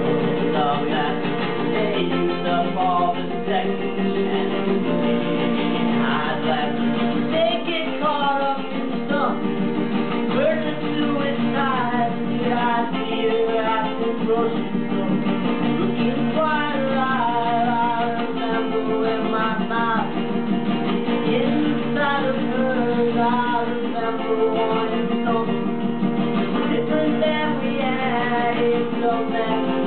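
A man singing a folk song while strumming a nylon-string classical guitar.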